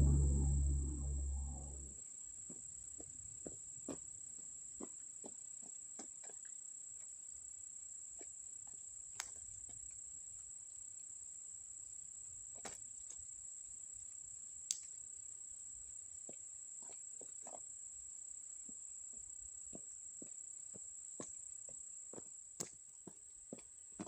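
Insects chirring in an unbroken high drone, with scattered faint clicks over it. A low rumble dies away about two seconds in.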